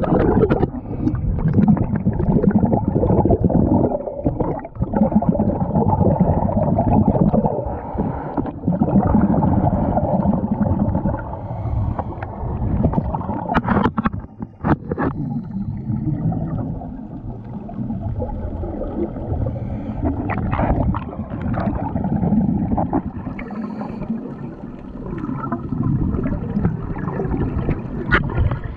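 Muffled underwater rumble with the gurgling of scuba regulator exhaust bubbles, and a few sharp knocks on the camera.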